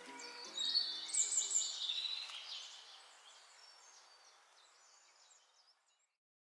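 Birds chirping, loudest about a second in, then fading away to silence near the end.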